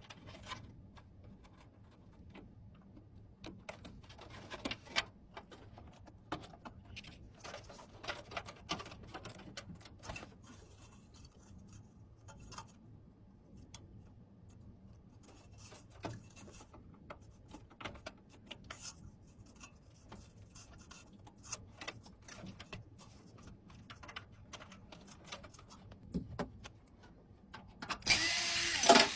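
Scattered light clicks, taps and rubbing of computer hardware being handled during a PC build, over a low steady hum, with a louder rasping rustle lasting about a second near the end.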